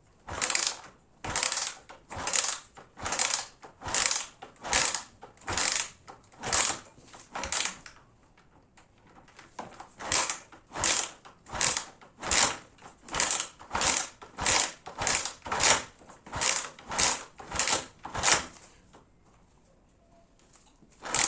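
The kick-starter of a 2003 Honda CG Titan being kicked over and over, about twenty kicks with a short pause midway. The engine turns over without firing, with the spark plug cap off, to pump the oil up after years standing.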